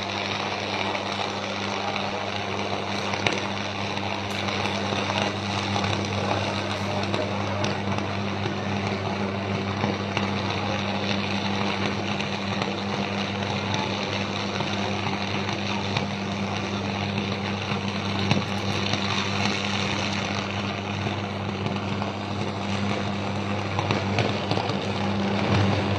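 Sustained power arc on a high-voltage transmission line tower: a steady harsh electrical buzz with a crackling hiss over it. It is a line fault, the arc burning between conductor and tower hardware.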